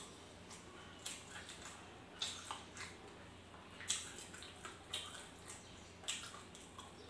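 Wet mouth sounds of eating by hand: chewing and lip smacks on mouthfuls of rice and noodles, in short sharp smacks at irregular intervals about once a second.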